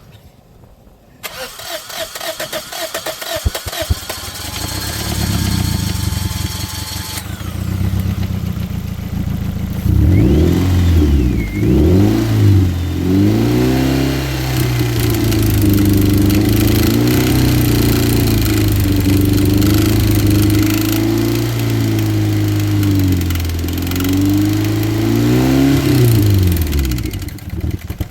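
Badly damaged Toyota engine, full of airsoft BBs, running rough and clattering at first, then revving hard with its pitch surging up and down. It cuts out near the end.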